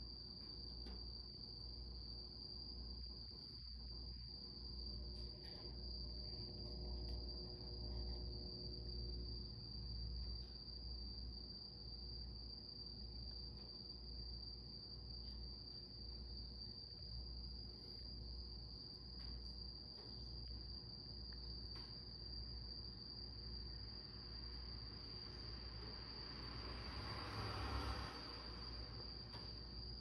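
A cricket trilling steadily in one unbroken high note, with a brief swell of rustling noise near the end.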